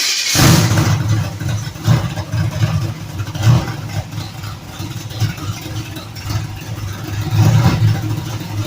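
Old street-race car's engine running loud, revved up several times in short blips over a steady running sound.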